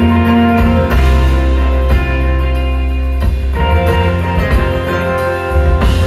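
Rock band playing live: guitar over bass and drums in an instrumental passage with no singing.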